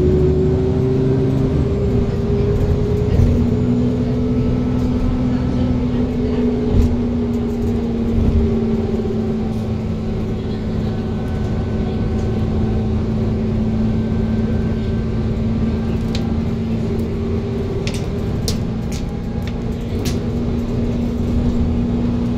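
Bus engine and drivetrain heard from inside the passenger cabin while the bus travels at a steady speed: a steady drone with a held whine over low road rumble. A few sharp rattles come near the end.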